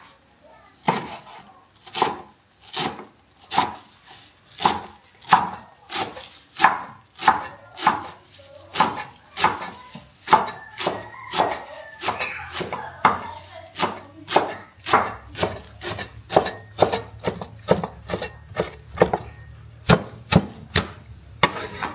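Knife chopping food on a wooden board: a steady run of sharp strokes beginning about a second in, at first about one and a half a second and quickening to about two a second in the second half.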